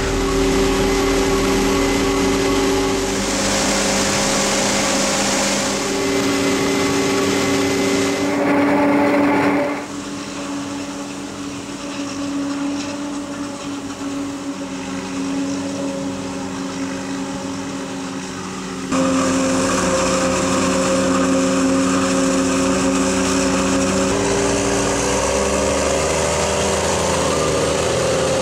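Heavy farm machinery running steadily during maize chopping: forage harvester and tractor engines with a steady machine hum and whine, changing abruptly twice as the shots change.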